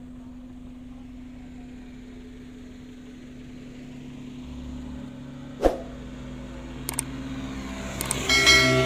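A steady low hum, like a car in motion, runs under a sharp pop and a pair of quick clicks. Near the end come clicks and a bright bell-like chime, the sound effects of a subscribe-button animation.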